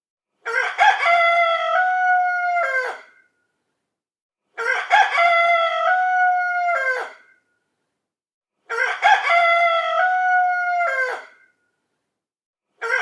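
A rooster crowing cock-a-doodle-doo, the same crow repeated every four seconds or so: three full crows and the start of a fourth near the end, with silence between. Each crow holds a steady pitch, steps down partway through and falls away at the end.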